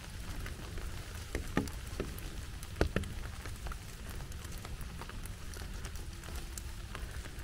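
Light rain falling: a faint steady wash with scattered drops ticking, and a few louder taps between one and three seconds in.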